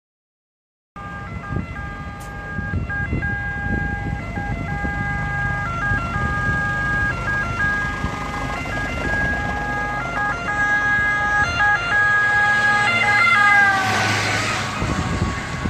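Ambulance two-tone siren alternating between a high and a low pitch. Its pitch drops about fourteen seconds in as the ambulance passes close by, with a rush of passing-vehicle noise, over a low rumble of engines and road.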